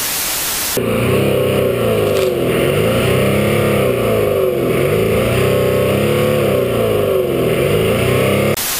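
Off-road 4x4's engine revving up and down again and again while its front wheel spins in deep snow, trying to dig free. A hiss of TV-static noise opens and closes it.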